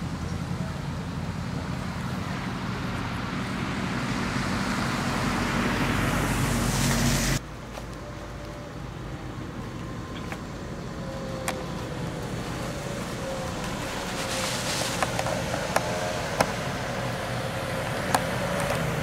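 A car driving slowly on a snow- and slush-covered street, its engine and tyre noise running steadily. The sound swells for the first seven seconds or so, then cuts off suddenly. Quieter running follows, with a few sharp clicks near the end as the tyres roll through packed snow and slush.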